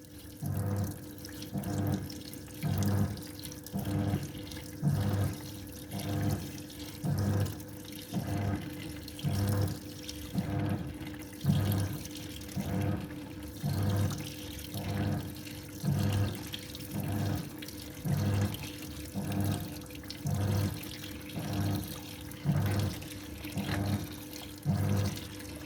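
Washing machine in its wash cycle, the drum turning so the water sloshes in a regular rhythm a little under once a second, over a steady motor hum.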